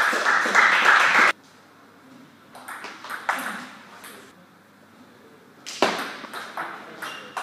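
A loud burst of noise in the hall stops abruptly just over a second in. Then, after a quiet spell and a few faint taps, a celluloid/plastic table tennis ball clicks repeatedly off the bats and the table in a fast rally near the end.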